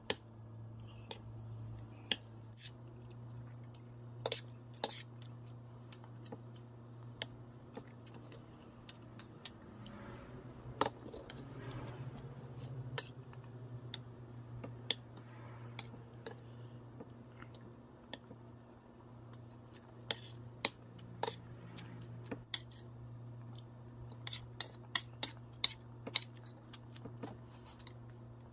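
Metal spoon and fork clinking and scraping against a ceramic plate while eating rice, many sharp irregular clicks over a steady low hum.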